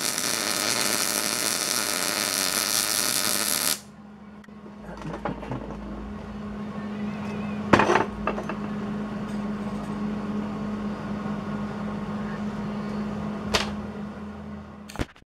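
Welding arc crackling loudly and steadily as weld is laid onto a gear's broken teeth, cutting off abruptly a few seconds in. A steady electrical hum follows, with a few sharp knocks, the loudest about halfway through.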